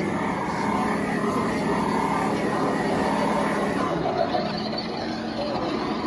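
Radio-controlled scale model tank running: a steady motor hum with a whine on top, easing off about four seconds in, over the murmur of a crowd.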